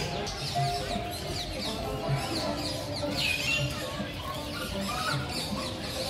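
Many small aviary birds chirping and chattering in quick short falling calls, over background music with a slow, regular beat.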